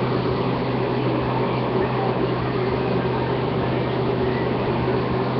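Steady background hum with an even hiss and no distinct events: constant room or equipment noise.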